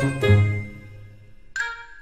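Background music with bell-like tinkling notes over a bass line. It fades away after about half a second, and a single bell-like note sounds near the end.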